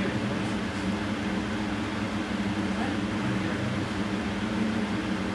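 A steady low mechanical hum with a constant low tone, unchanging throughout.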